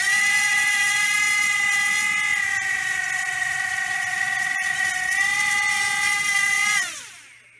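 Airfun Exceed 2 toy quadcopter's small motors and propellers whining steadily. About seven seconds in, the motors cut and the whine glides down in pitch as the props spin down to a stop.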